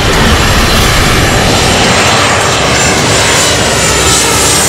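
Twin-engine jet airliner coming in low on final approach to land, its turbofan engines loud: a steady rush with a faint high whine above it.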